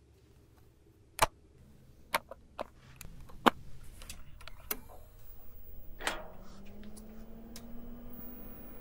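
A run of sharp clicks as a mains plug is pushed into a power strip and switched on, the loudest about a second in and midway. About six seconds in, a low electrical hum sets in and slowly rises in pitch as the rack of video equipment powers up.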